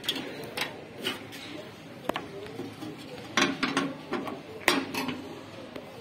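A dozen or so irregular clicks, knocks and metallic clatter as parts and wiring are handled inside the sheet-metal chassis of an opened microwave oven, loudest a little past the middle.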